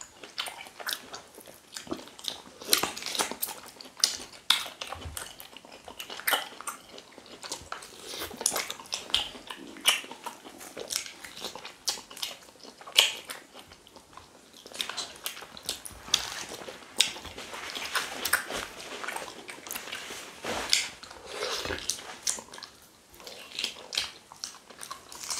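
Close-miked mukbang eating sounds: wet chewing, lip-smacking and sucking as fufu and cow meat are eaten by hand with slimy ogbono soup, heard as a run of irregular sticky clicks and smacks.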